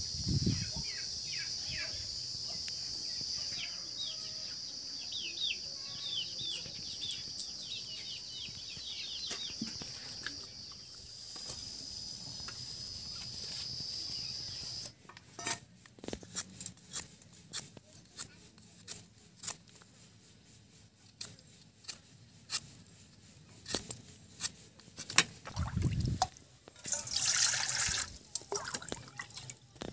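A steady high insect drone with a run of short falling bird chirps, cut off abruptly about halfway through. Then scattered light clicks and knocks, and near the end water splashing in a steel bowl.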